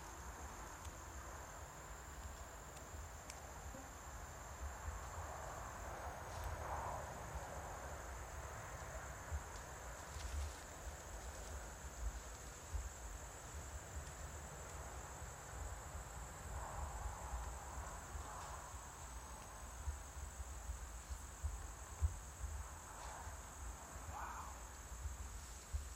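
Insects droning in one steady high-pitched band, with a low rumble underneath and a few faint clicks, one sharper click about twenty-two seconds in.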